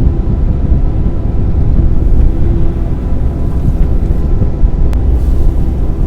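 Excavator's diesel engine running steadily under load, a loud low hum.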